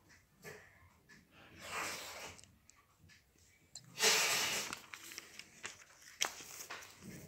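Paper pages of a book being turned by hand, rustling, with the loudest swish about four seconds in and small clicks of handling between.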